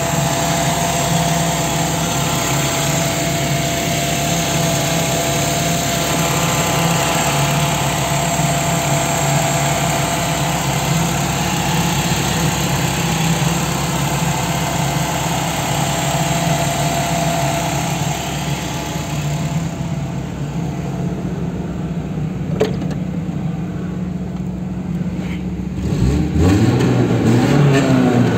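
Volkswagen Pointer's four-cylinder engine idling steadily, then revved up and back down near the end.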